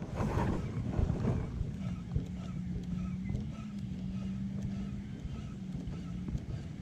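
Wind buffeting the microphone in gusts at the start and about a second in, then a steady low hum for about four seconds on the water.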